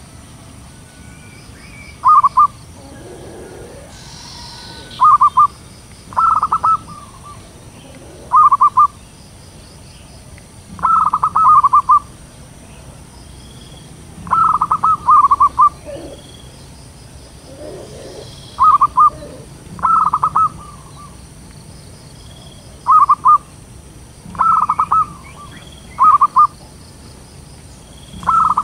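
Zebra doves cooing: short, rapid, stuttering phrases of coos, one every two seconds or so, about a dozen times.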